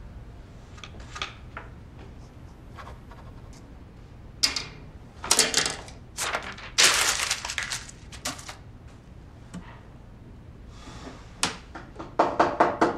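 Pen scratching on paper in a few short quick strokes, writing and scribbling over notes on a handwritten guitar tab. Near the end there is a quick run of about five knocks on a door.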